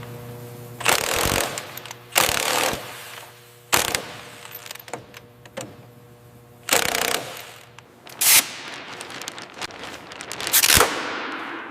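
A series of short, loud bursts of mechanical noise, about six of them a second or two apart, the last one trailing off.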